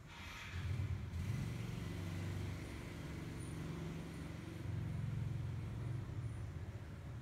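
Low engine hum of a motor vehicle running, swelling about half a second in, dipping, then swelling again near the middle before easing off.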